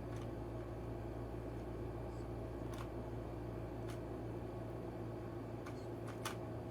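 Scattered sharp clicks of a 2x2 puzzle cube being turned by hand, a few irregular clicks with a small cluster near the end, over a steady low hum.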